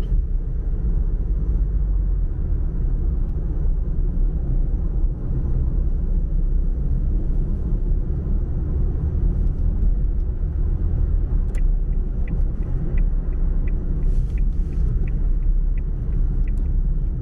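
Car driving noise heard from inside the cabin: a steady low rumble of road and engine. For several seconds past the middle there is a run of light, evenly spaced ticks, about two a second.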